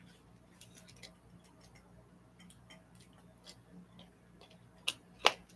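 Someone drinking from a plastic water bottle: faint scattered clicks and small taps, with two sharper clicks near the end.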